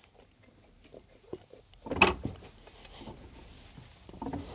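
Metal engine parts handled by hand while a Lambretta gearbox is assembled: small scattered clicks and scrapes, with one louder, short knock about two seconds in.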